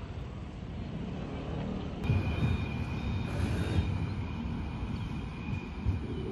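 Kaohsiung light rail tram approaching on its track, with a steady high whine and a few short beeps over a low rumble. Before it, about two seconds of plain low street rumble.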